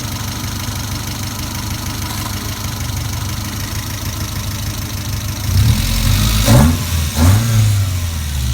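Toyota MR2's 5S-FE 2.2-litre four-cylinder engine idling steadily, then revved up twice near the end, while Sea Foam is being run through it to try to make it smoke.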